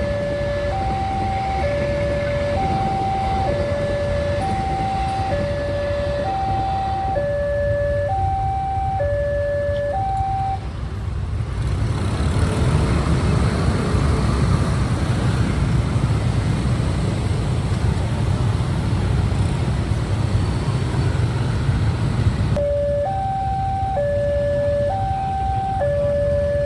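Railway level-crossing warning alarm sounding an electronic two-tone signal, a low and a high note alternating, each held just under a second. About eleven seconds in the alarm drops out and a louder, even rumbling noise takes over for about eleven seconds, then the two-tone alarm resumes near the end.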